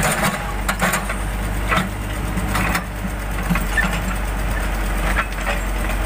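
Case backhoe loader's diesel engine running steadily while the backhoe digs, with irregular knocks and scrapes from the bucket and arm working in the soil.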